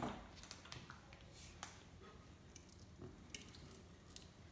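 Near silence with a few faint, scattered clicks: a plastic lid being worked off a tub of honey.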